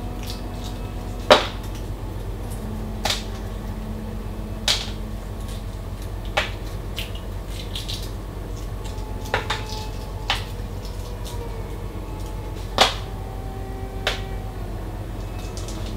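Scattered sharp clicks and knocks of kitchen items being handled, about eight in all and a few seconds apart, over a steady low hum.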